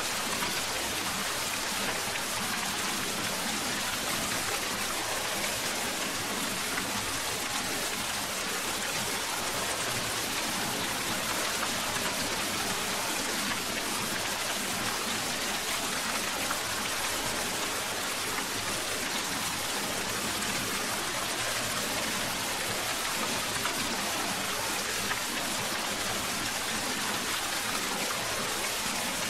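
Steady rain falling, an even hiss of drops with no break or change.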